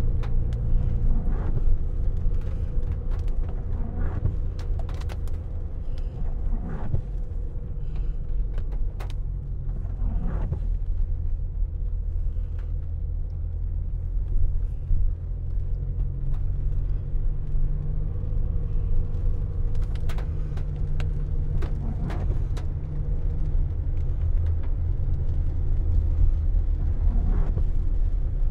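Car driving on a wet road: a steady low rumble of engine and tyres, with scattered short clicks and taps now and then.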